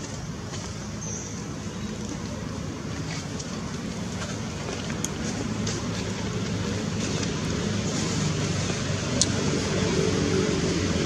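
Steady motor-vehicle engine noise that grows gradually louder.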